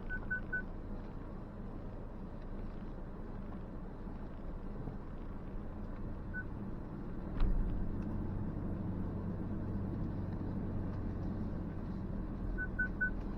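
The Ford Ranger's parking-sensor warning pinging inside the cab, a quick run of three short beeps at the start, one single beep midway and three more near the end, set off by branches close to the truck. Underneath is a steady low rumble of the truck crawling over the trail, with one sharp knock about seven seconds in, after which the rumble grows louder.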